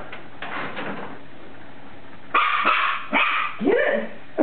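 Norfolk terrier puppy barking at a paper bag: a run of about four sharp, loud barks starting a little past halfway, after some faint paper rustling early on.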